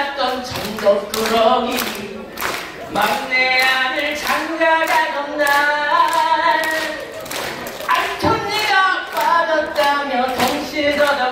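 A solo singer sings into a handheld microphone, amplified through the stage's PA speakers. The voice holds long notes that waver and glide, over a steady beat of sharp claps.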